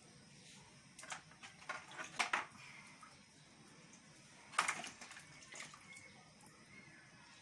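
Water splashing and dripping in a plastic basin as fish is rinsed and handled by hand. A few short splashes come about a second in and around two seconds, and a louder one a little past the middle.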